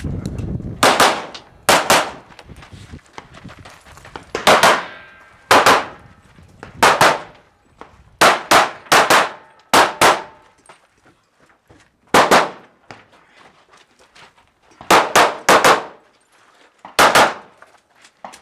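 Handgun fired in rapid practical-shooting strings: well over a dozen shots in pairs and quick runs, with gaps of one to two seconds between target arrays. Some shots are followed by the ring of struck steel targets.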